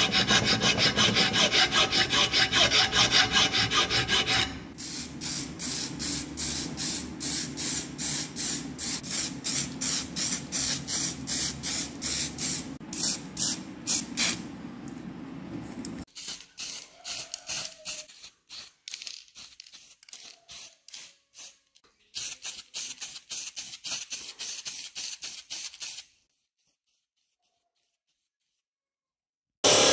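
Rapid back-and-forth abrasive hand strokes rubbing on metal, as when scrubbing rust off the meat grinder's parts. The strokes are loud for the first few seconds, then quieter and sparser across several cut-together passages. A few seconds of dead silence follow before loud strokes resume at the very end.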